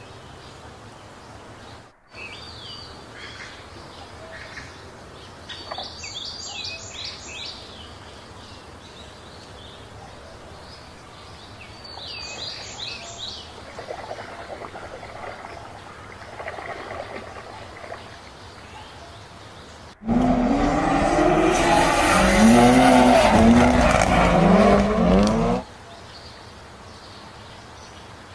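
Birds chirping faintly with water sloshing in a tub. About twenty seconds in, a loud engine-revving sound, its pitch rising and falling, cuts in for about six seconds and stops abruptly.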